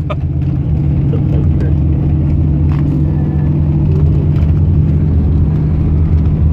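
Steady engine drone and road noise from a moving vehicle, heard from inside the cab.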